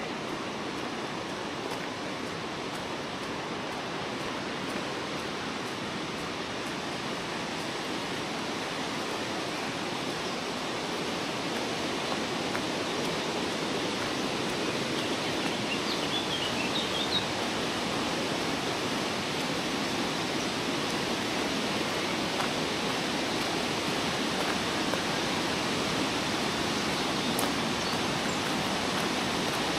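The Iller River in flood, high water rushing in a steady wash of noise that grows slowly louder. A bird chirps briefly about halfway through.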